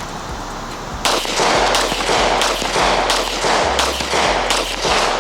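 Glock 20 10mm semi-automatic pistol fired in a quick string: about ten sharp shots, roughly two a second, starting about a second in.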